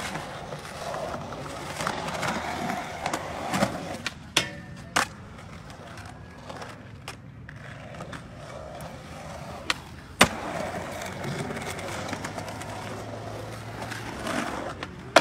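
Skateboard wheels rolling on concrete, broken by several sharp clacks of the board popping and landing; the loudest clack comes about ten seconds in.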